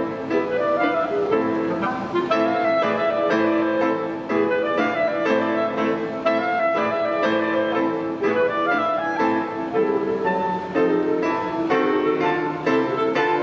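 Clarinet and grand piano playing classical chamber music together, a run of struck piano notes under the clarinet's melody.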